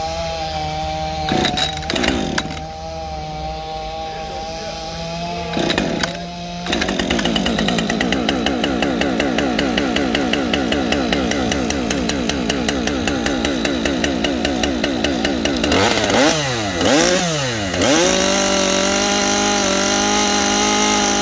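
Husqvarna 545 AutoTune two-stroke chainsaw running off the wood: idling, then held at a higher, steadier speed for several seconds, then revved up and down two or three times before settling back to idle. The engine's idle, throttle response and high speed are being shown before a tuning cut.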